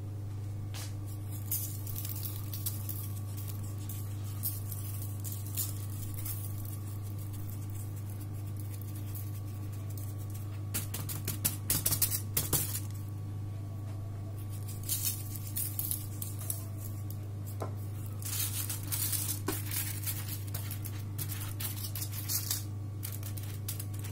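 Hand pressing and rubbing halved eggplant slices on a foil-lined baking tray, making soft squishes and crinkly, scratchy rustles of the foil in clusters, mostly in the second half. A steady low hum runs underneath.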